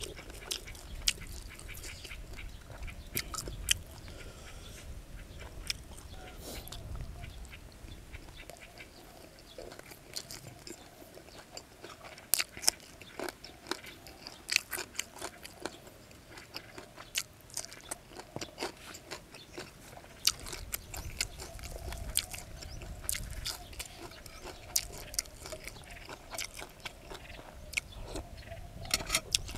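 A person chewing and biting food close to the microphone: wet mouth clicks and crunches at irregular moments, from eating minced shrimp larb with fresh, crisp kradon leaves.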